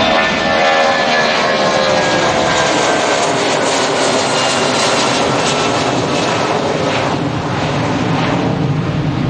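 Boeing 757 jet airliner climbing out overhead after takeoff. The engines' whine falls in pitch as the plane passes, then gives way to a deep rumbling roar as it flies away.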